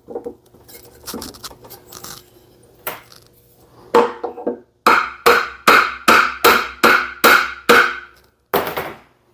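Hammer striking metal with a ringing clang. A few scattered knocks come first, then from about five seconds in a steady run of about eight blows, two to three a second, with one last blow near the end.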